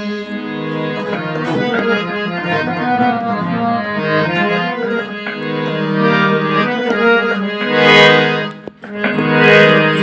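Harmonium playing a melodic interlude between sung lines, reed notes held and moving from one to the next. It swells louder about eight seconds in, then briefly drops away just before the end.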